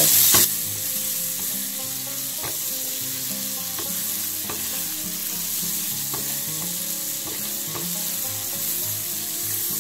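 Diced onion and halved cherry tomatoes sizzling steadily in oil in an aluminium frying pan as they sauté. A silicone spoon stirring them gives a few faint scrapes and taps against the pan.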